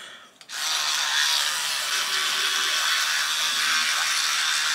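Steady hiss of tooth-brushing at a bathroom sink, starting about half a second in and running on evenly.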